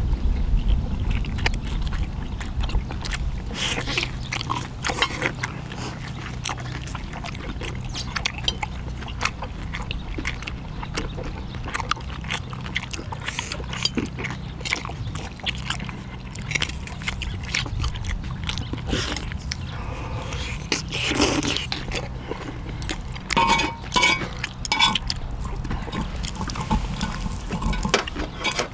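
People eating at close range: wet chewing and slurping, with scattered short clicks and smacks throughout.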